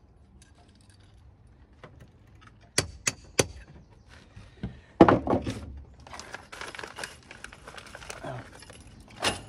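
Hammer driving Hall clips into the brick mortar joints to hold lead step flashing: three quick sharp taps about three seconds in and a heavier blow at about five seconds. A few seconds of handling noise follow, then one more strike near the end.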